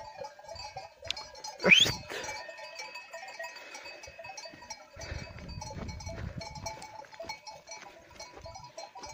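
Bells on a herd of goats clinking steadily as the animals move over the slope, with one sharp rising whistle about two seconds in.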